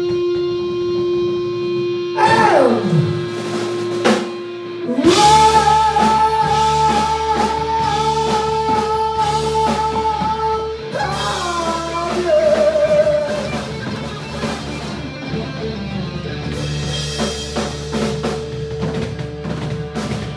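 Live rock band playing. An electric guitar holds a note, swoops steeply down in pitch about two seconds in, then holds a long wavering high note over drums and bass, with bending, sliding notes a few seconds later.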